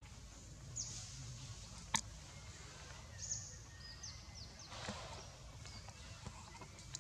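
Faint outdoor ambience with a steady low rumble, over which short, high-pitched chirps that slide down in pitch come several times, and a single sharp click about two seconds in.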